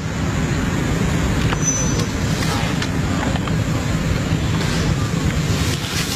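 Steady low rumbling noise with a few faint clicks.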